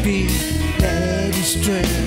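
Live reggae band playing an instrumental passage: an electric guitar lead with bending notes over bass guitar and drums, with cymbal hits.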